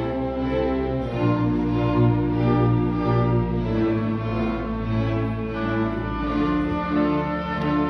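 String orchestra of violins, cellos and double bass playing slow, held chords. The bass line sits underneath and the harmony changes every second or two.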